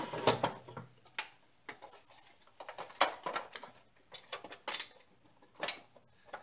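Hollow plastic radio cabinet being handled and turned over on a desktop: scattered light knocks, taps and scrapes of plastic.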